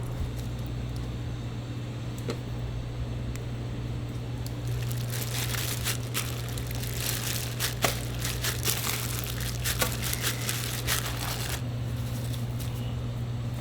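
Marinated chicken (dakgalbi) crackling and popping on a charcoal grill, with a dense run of sharp crackles through the middle, over a steady low hum.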